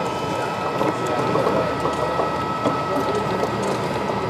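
HO scale model train running past, its locomotive's small motor and gearing whirring with light clicking from the wheels on the track.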